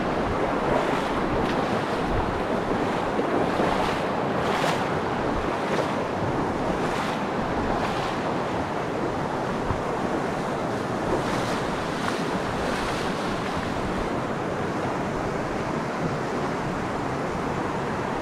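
Steady rush of a small mountain stream running over a rocky riffle into a pool, with some wind noise on the microphone.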